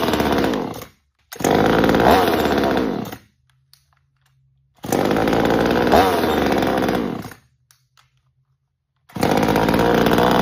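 Small Veor gas chainsaw running on its first run out of the box, revved in repeated bursts of about two seconds each, the engine pitch climbing and then dropping back. The sound cuts off to silence between bursts.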